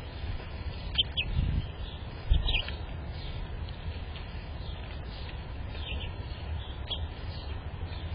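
Small birds giving several short, high chirps over a steady low rumble, with two dull low thumps in the first few seconds.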